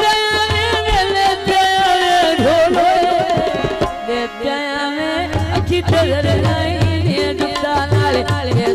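Live amplified folk song: a woman singing into a microphone with a wavering, ornamented melody over a steady hand-drum beat.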